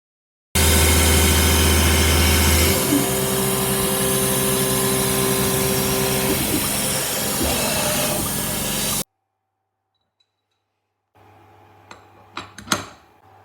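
CNC router spindle milling the jig block: a loud, steady cutting noise with a constant whine that stops suddenly about nine seconds in. A few light knocks follow near the end.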